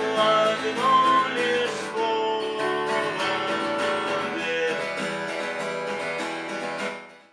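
Acoustic guitar strummed in a steady rhythm, playing the closing chords of a song. The sound fades out just before the end.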